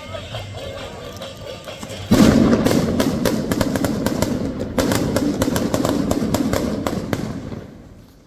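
A string of firecrackers going off: a rapid crackle of many small bangs that starts suddenly about two seconds in, surges again about five seconds in, and fades near the end.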